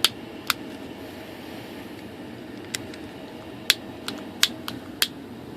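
Small sharp clicks and taps, about eight of them, scattered and irregular, from handling parts and tools at a workbench. Under them runs a steady hum.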